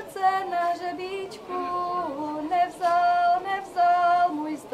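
A woman singing a folk song unaccompanied, moving between long held notes with short breaks between phrases.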